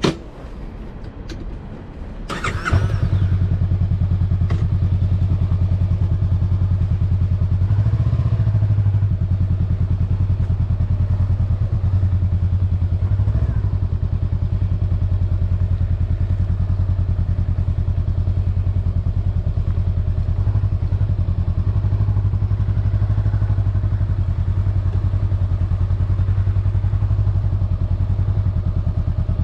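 Honda Rebel 500's parallel-twin engine starting: the starter cranks briefly about two and a half seconds in, the engine catches, and then it runs steadily at idle. A sharp click comes right at the start.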